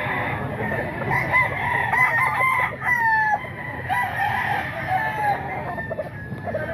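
Several gamecocks crowing at once, their calls overlapping and some trailing off downward in pitch, over a steady low background noise.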